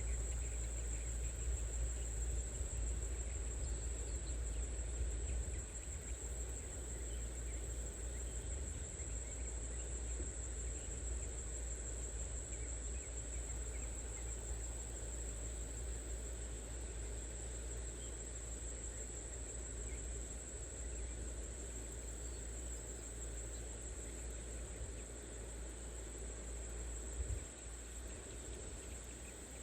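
Insects, likely crickets, trilling in a steady high continuous tone, over a low rumble.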